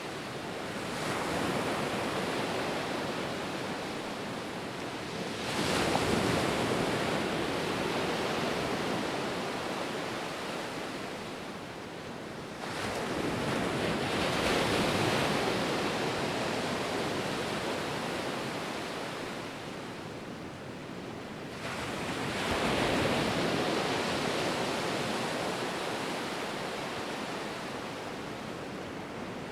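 Ocean surf: a continuous wash of waves breaking on shore, swelling four times as each new wave breaks, several seconds apart.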